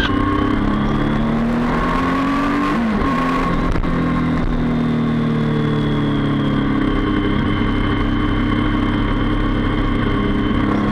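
Honda CBR300R single-cylinder engine running under way, its pitch rising and falling with the throttle, with a quick dip and recovery about three seconds in, then a slow fall.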